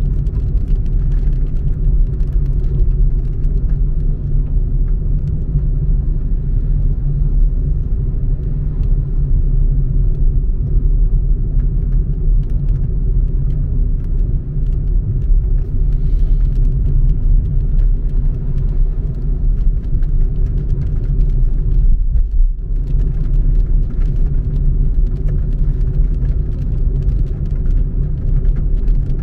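Steady low rumble of a moving car, road and wind noise heavy in the bass, with a short dip about two-thirds of the way through.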